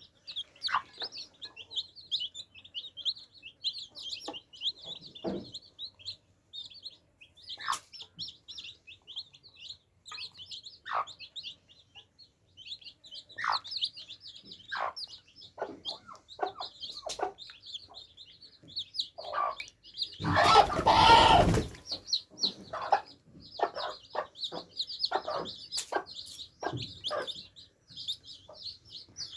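Baby chicks peeping continuously, high and rapid, with scattered lower clucks. A loud noise lasting about a second and a half comes about two-thirds of the way through.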